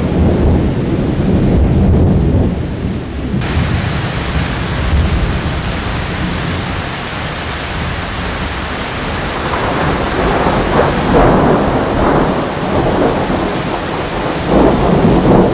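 Thunderstorm with steady heavy rain hiss and rolling thunder. A low rumble dies away at the start and the rain hiss comes up suddenly a few seconds in. About ten seconds in, a loud crackling thunderclap rolls in, and it surges again near the end.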